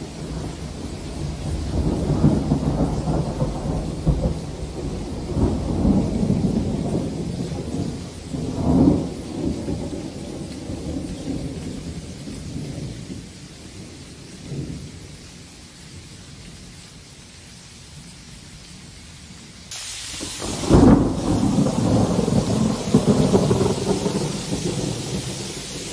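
Thunder rolling during a sleet storm (thundersleet): long low rumbles that swell and fade, loudest about 9 seconds in and dying away by about 15 seconds. About 20 seconds in the sound jumps to a sharp crack of thunder followed by more rumbling, over a steady hiss of falling sleet.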